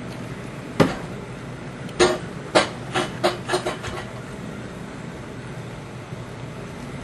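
HO-scale model train cars rolling past on the track with a steady running hum, broken by a run of about seven sharp knocks between about one and four seconds in.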